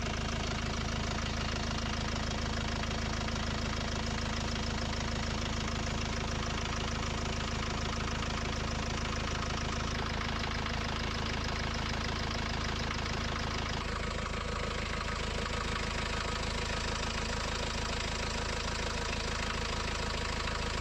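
Renault Master's four-cylinder diesel engine idling steadily while its injectors are being tested with a back-leak vial kit. The tone of the running shifts a little about 14 seconds in.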